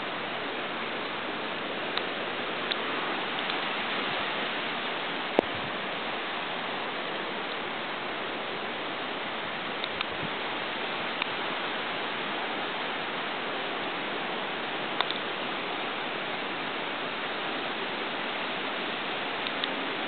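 Steady hiss of falling rain, with a few sharp ticks scattered several seconds apart, one a little before the middle standing out.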